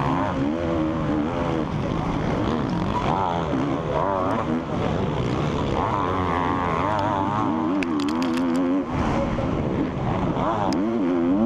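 Four-stroke motocross bike engine, a KTM 350 SX-F, heard from the rider's helmet camera, revving up and down with the throttle through the corners.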